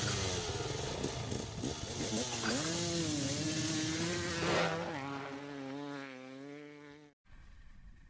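Dirt-bike engine revving as a sound effect: the pitch dips and rises, a brief loud rush of noise comes about four and a half seconds in, then the engine holds a steadier note and fades out before cutting off near the end.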